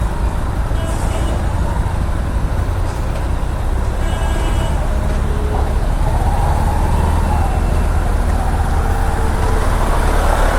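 Kawasaki Ninja motorcycle riding in road traffic: a steady low wind rumble on the mic over the engine and the surrounding traffic.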